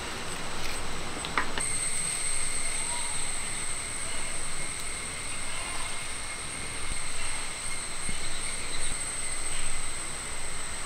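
Faint handling sounds as jackfruit bulbs are pulled from a split raw jackfruit by hand and piled into a pot, under a steady high-pitched whine that starts about a second and a half in.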